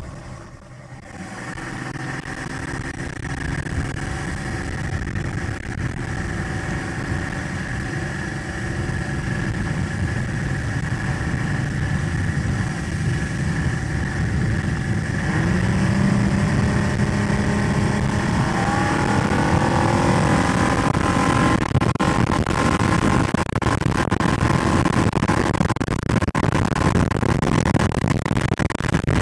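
Yamaha two-stroke outboard motor driving the boat along, running steadily, then rising in pitch in two steps past the middle as the throttle is opened, and growing louder.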